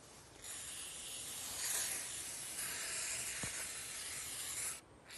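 Aerosol wound spray hissing in one continuous burst of about four seconds as it is sprayed onto a wild dog's snare wound, cutting off sharply near the end.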